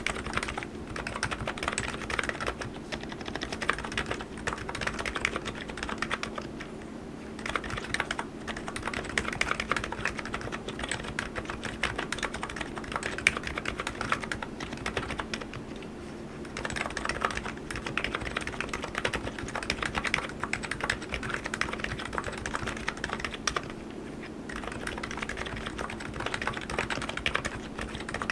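Typing on an ABKO KN02C electro-capacitive (non-contact) keyboard: runs of quick keystrokes lasting several seconds each, broken by brief pauses three times, over a faint steady low hum.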